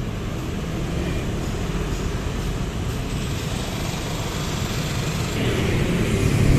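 Steady rumble of road traffic, with cars and motorcycles passing on a busy street.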